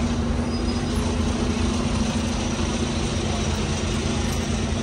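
Steady street traffic rumble with a constant low engine hum.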